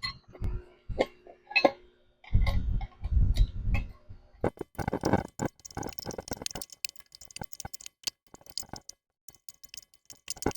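Wrench tightening bolts on a steel air-bag bracket: a run of sharp metal clicks and clinks, with a few low knocks about two to four seconds in and a denser spell of rapid clicking in the middle.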